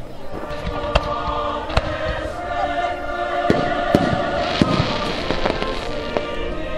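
Aerial firework shells bursting in a string of sharp, irregular bangs over music with singing voices.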